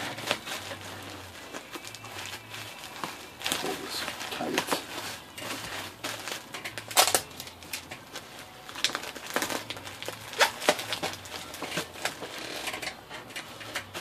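Plastic bubble wrap crinkling and crackling as hands press and fold it around a typewriter, with irregular sharp crackles, the loudest about seven seconds in.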